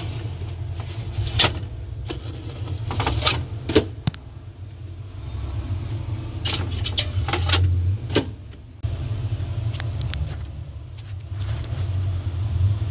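Steady low machine hum with a handful of sharp clicks and knocks, like parts being handled, scattered through it.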